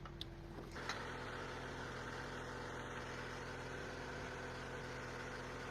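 ATV engine running steadily, cutting in abruptly about a second in.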